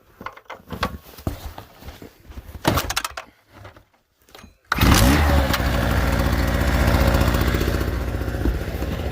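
Storm Cat portable generator's engine starts about halfway through after a few irregular knocks and clicks. It quickly picks up speed and then runs steadily.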